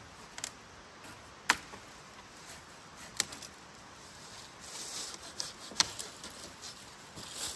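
Dry dead branches being snapped off a fallen tree for firewood: four sharp cracks, the loudest about a second and a half in and near six seconds. Twigs and dry leaves rustle between them.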